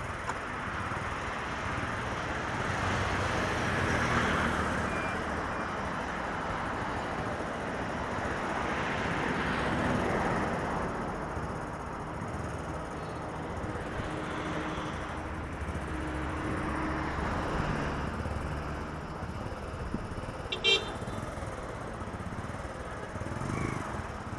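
Road traffic passing, the noise swelling and fading as vehicles go by, with one short horn beep about twenty seconds in.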